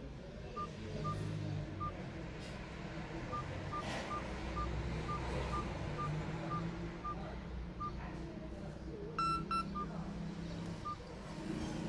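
Nokia 150 keypad tones: short, single-pitched beeps, one per press of the navigation key, coming at an uneven pace as the menus are scrolled. About nine seconds in come two louder, fuller beeps in quick succession, over a low steady background rumble.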